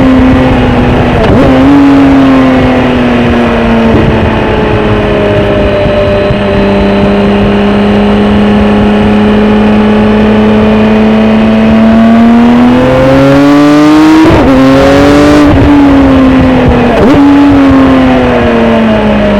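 BMW K1600 GTL inline-six engine running through a Dominator HP1 aftermarket exhaust on the move. It holds steady cruising revs, then revs up with three brief sharp dips in pitch before easing off near the end.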